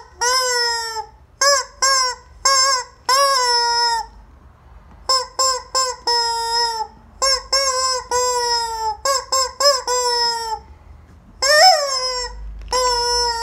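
Rubber chicken squeeze toy squawking again and again as it is squeezed. The honks are shrill and come in an irregular string, some short and some drawn out to about a second, each quickly rising then sliding slightly down in pitch. There is a brief pause about four seconds in.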